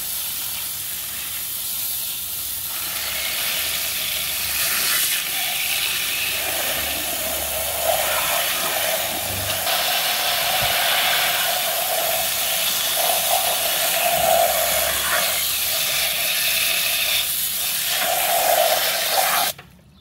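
Garden-hose spray nozzle jetting water onto a plastic toy excavator and wet concrete: a steady, loud hiss with water splattering off the toy. The spray cuts off suddenly near the end.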